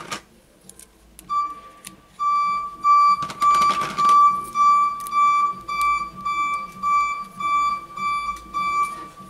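An electronic beeper sounding one steady high-pitched tone over and over, about two beeps a second, starting about a second in and stopping near the end. A short rustle of handling comes about three seconds in.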